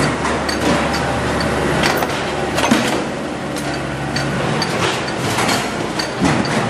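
Sheet-metal forming press running in a workshop with a steady low hum, over which stainless steel sink bowls clank as they are loaded into and pulled out of the die. There are a few sharp metal knocks, the loudest nearly three seconds in, and the low hum stops about two-thirds of the way through.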